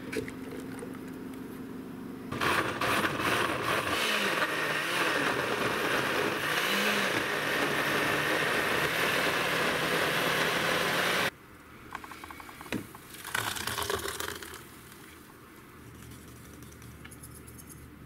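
Countertop blender running for about nine seconds, pureeing chopped cucumbers and peppers into soup, then cutting off suddenly; a few shorter knocks and rattles follow.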